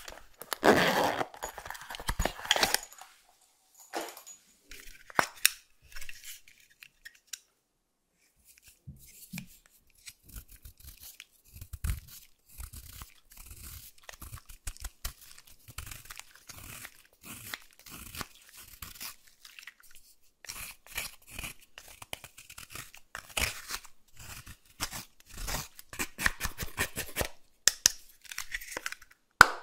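A zipper on a silicone strawberry-shaped coin purse being pulled open, the loudest sound, in the first few seconds. Then a plastic spatula scraping and crumbling pressed eyeshadow out of its compact, in many short scratchy strokes.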